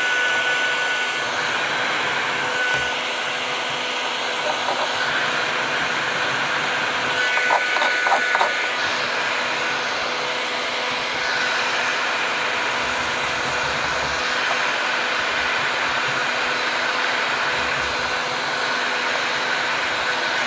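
Bosch electric heat gun running steadily, its fan blowing hot air with an even rushing hiss and a faint steady hum.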